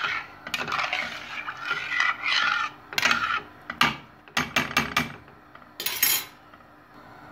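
Metal spoon stirring rice in boiling water in a stainless steel pot, scraping and clinking against the pot. Sharp clinks come about three and four seconds in, then a quick run of four, and a last one about six seconds in.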